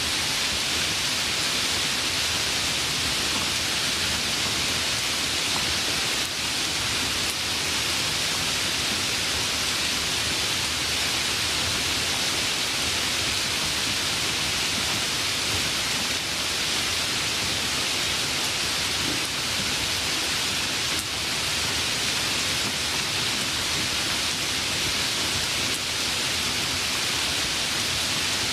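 Steady rain, an even hiss with no thunder.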